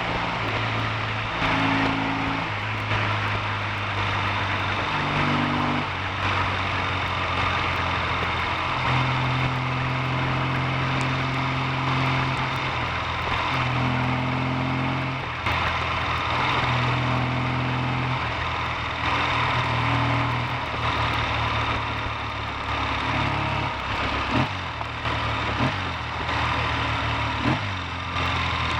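Triumph T140V's 750 cc parallel-twin engine running on a test ride, its note shifting up and down in pitch every few seconds as the throttle opens and closes through the freshly repaired five-speed gearbox. There are a few short knocks near the end.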